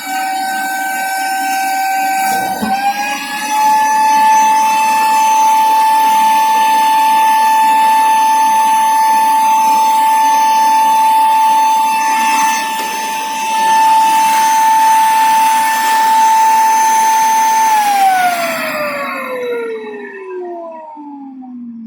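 Kärcher SE 3 Compact spray-extraction cleaner's 500 W suction motor running with a steady high whine that steps up slightly in pitch about three seconds in. Near the end it is switched off and the whine falls steadily in pitch as the motor spins down.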